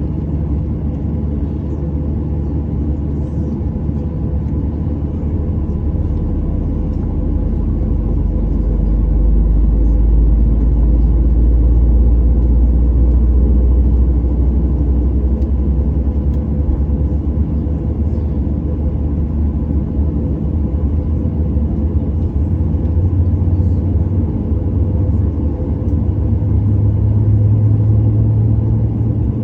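Boeing 737-800's CFM56 jet engines heard from inside the cabin during pushback and engine start: a steady low rumble with a hum. It grows louder about eight seconds in, and a low tone steps up in pitch near the end as the engines spool.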